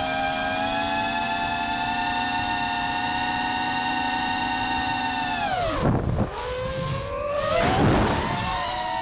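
DJI FPV drone's motors and propellers whining steadily in flight. About five and a half seconds in the pitch falls sharply as the throttle is cut, then rises again with a louder, wavering whine as throttle comes back in, before settling to a steady whine near the end.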